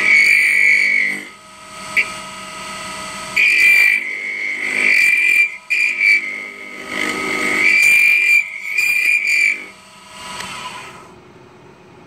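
Lathe gouge cutting a small spinning acrylic blank, giving a high whine with a chattering edge in three spells, the tool chattering because the piece is mounted on an unhardened spindle that is not rigid. A single sharp click comes about 2 s in, and the lathe runs more quietly near the end.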